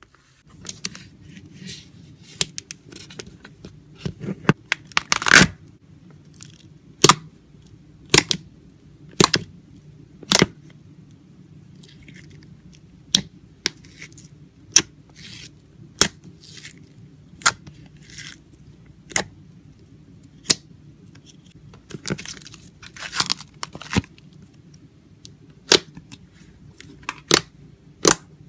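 Hands squishing, stretching and poking slime: crackly stretches alternate with sharp air-bubble pops, a single pop about every second through the middle stretch.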